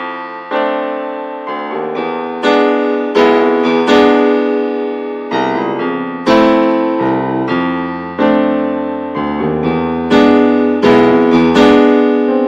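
Background piano music: chords struck every second or so, each fading before the next.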